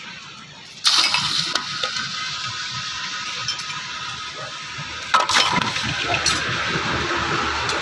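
A machine with a steady whine starts suddenly about a second in, with a harsh rasping noise over it, typical of a power tool working metal. About five seconds in there is a second loud bite, and the whine sits a little higher after it.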